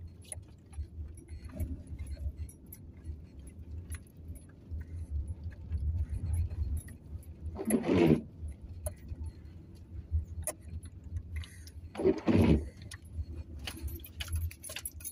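Inside a car driving in the rain: a steady low rumble of engine and tyres on the wet road, with scattered light ticks. Two louder swishes come about eight and twelve seconds in.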